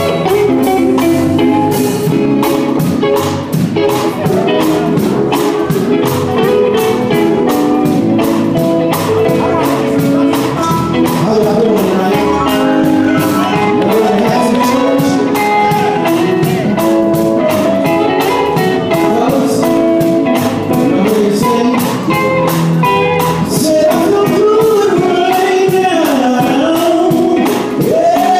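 Male gospel group singing live with electric guitar accompaniment over a steady beat.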